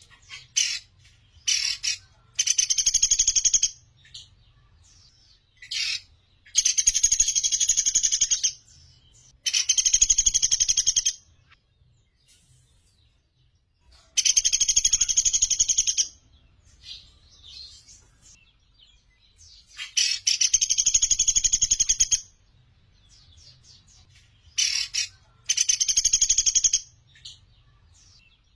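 Pelatuk beras, a small woodpecker, calling in rapid high trills, each a fast run of repeated notes lasting one to two seconds, about six in all with short single notes in between.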